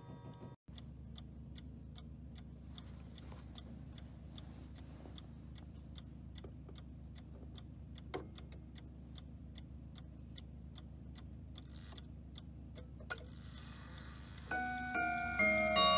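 Howard Miller Webster mantel clock movement ticking steadily, about two ticks a second, with two louder mechanical clicks. Near the end its hammers start striking the chime rods, and ringing chime notes begin one after another.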